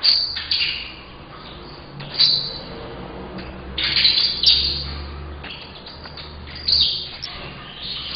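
Young male saffron finch (canário-da-terra) singing in short bursts of high chirping notes, four phrases with gaps between: a juvenile only starting to sing.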